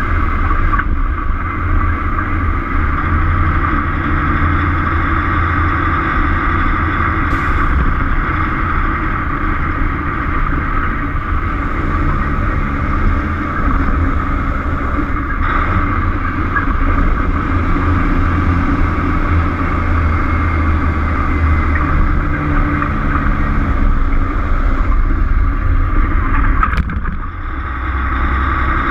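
Peterbilt truck's diesel engine running under way, a steady low drone mixed with road and wind noise, dipping briefly near the end.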